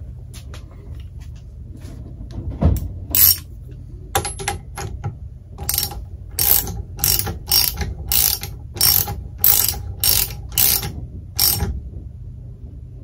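Socket ratchet wrench clicking in short runs, about one every half second through the second half, as a spark plug carrying a helicoil insert is screwed into the re-tapped spark plug hole of a vintage outboard motor's cylinder head.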